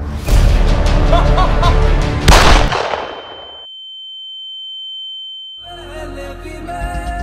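Dramatic film soundtrack with a sharp loud hit about two seconds in. The soundtrack then drops away to a single steady high-pitched tone for two or three seconds before the music comes back.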